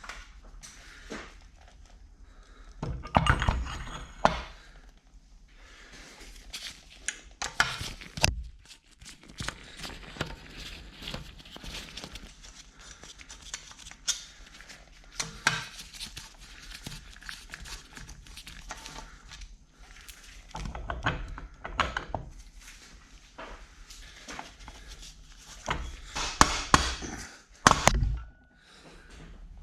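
Hand tools and metal parts of a Bridgeport milling-machine head knocking and clinking during disassembly, with irregular thunks and short bouts of clatter, the loudest about three seconds in, around twenty seconds in and near the end.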